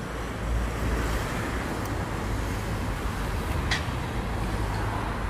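Steady outdoor noise of road traffic with wind rumbling on the microphone, and a brief faint tick about three and a half seconds in.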